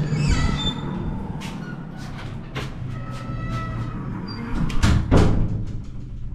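Clicks and knocks from a hand handling a door and its digital keypad lock, with two louder knocks about five seconds in, over music with a few held tones and a steady low hum.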